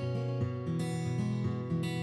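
Background music: a strummed acoustic guitar playing chords, with a new strum every half second or so.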